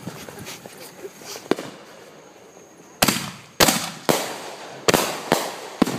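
Fireworks going off: low background for about three seconds, then a quick, uneven run of sharp bangs, about six in three seconds.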